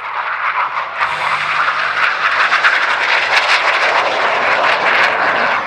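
IAR 99 Șoim jet trainer's Viper turbojet: loud jet noise that swells about a second in, holds steady, and falls away near the end.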